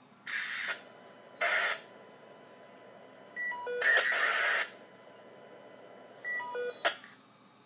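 Electronic noise: three short bursts of hiss, the last and loudest about a second long, and twice a quick run of beeps stepping down in pitch, followed by a sharp click near the end.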